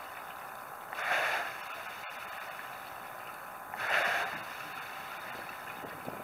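Wooden water-resistance rowing machine being rowed at a steady stroke: the water in its round tank swooshes with each drive, twice, about three seconds apart. A single sharp click sounds about two seconds in.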